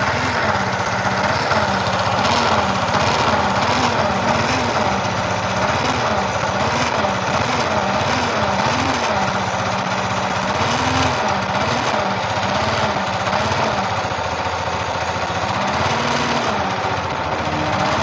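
Yamaha R15 V3's 155 cc single-cylinder engine idling with a humming, growling drone that wavers up and down about once a second, like a worn crankshaft bearing. The mechanic traces this noise not to the bearings but to a failed magneto charging coil: the battery is not being charged.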